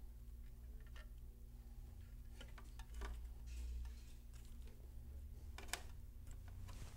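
Faint scattered clicks and light metallic taps from hand work fastening a wire's ring terminal to a scooter battery terminal with a screw, with one sharper click near the end, over a steady low hum.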